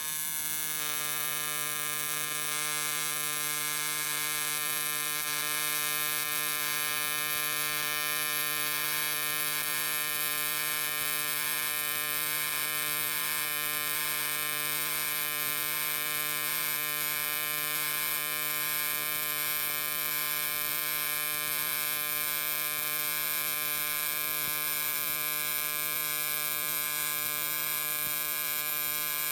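AC TIG welding arc on aluminium plate, a steady buzzing hum with a hiss above it.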